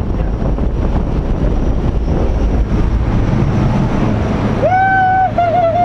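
Steady engine and wind noise inside the cabin of a skydiving jump plane. Near the end a person gives a long, high yell over it.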